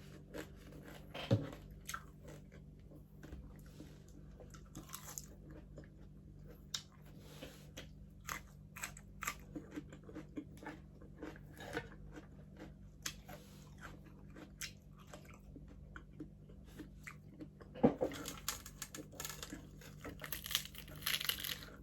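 Close-up chewing and crunching of crispy pata, its deep-fried pork skin cracking in many small crunches, with a sharper bite about a second in and another near the end.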